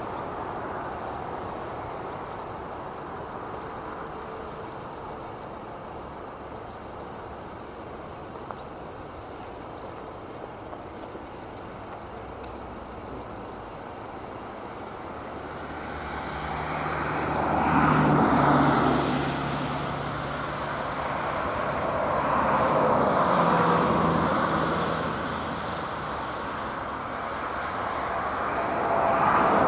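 Vehicle noise: a rumble that swells and fades three times in the second half, over a steady low engine hum.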